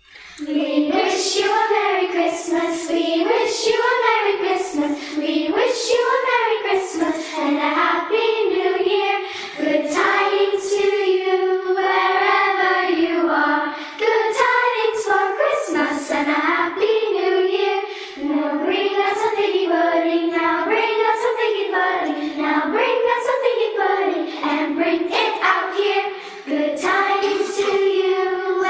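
Youth choir singing a song together, young voices carrying a melody in phrases with short breaks between them.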